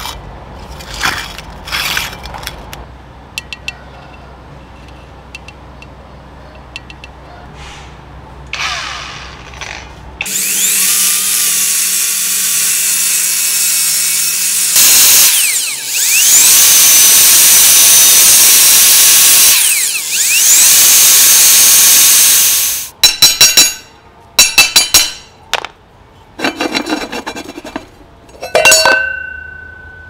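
A handheld rotary tool's abrasive cut-off disc grinding through the steel shell of a fridge compressor, a loud, steady, high-pitched whine that runs for about twelve seconds with two brief breaks. Before it come light clicks of the compressor being handled, and after it a series of sharp metal clanks as the cut shell is worked apart, one of them ringing.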